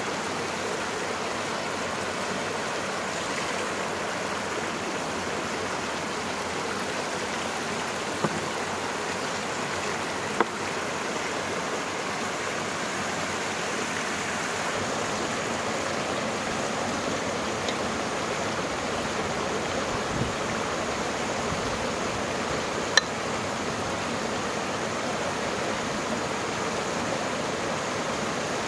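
Small mountain stream rushing and splashing over rocks, a steady unbroken sound. A few sharp knocks stand out over it, the loudest about two-thirds of the way through.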